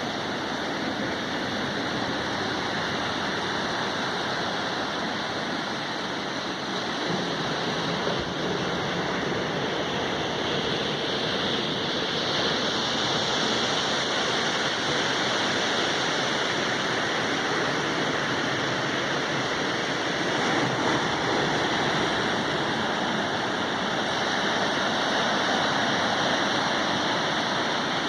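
Ocean surf washing onto a beach: a steady rush of breaking waves that swells and eases slightly a few times.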